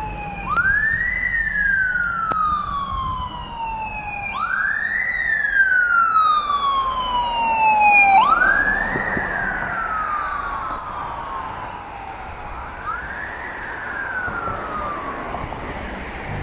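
Police car siren wailing: each cycle rises quickly and then falls slowly, about every four seconds, four times in all. It is loudest about eight seconds in and fainter on the last cycle as the car moves away.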